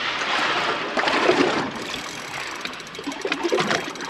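Water sloshing and rushing against the hull of a boat at sea, mixed with wind noise, loudest in the first second and a half. A few short, muffled voice sounds come in around the middle and near the end.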